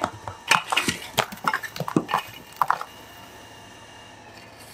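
Metal rake scraping and crunching through ash and charcoal in a brick pit oven: a quick run of rough scrapes and knocks for about three seconds, then it stops.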